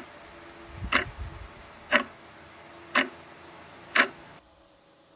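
Clock ticking, one loud sharp tick each second for five ticks, then it stops.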